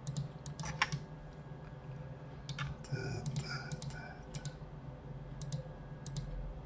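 Scattered clicks and taps of a computer keyboard and mouse, irregular and a few at a time, over a steady low hum.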